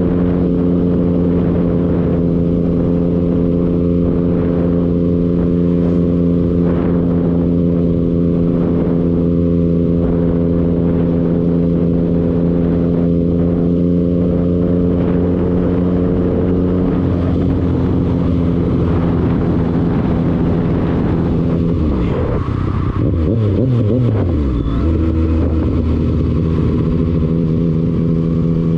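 A road vehicle's engine running at a steady cruising speed with a constant drone. About 22 seconds in it eases off and the pitch falls, then it settles into a steady, lower drone.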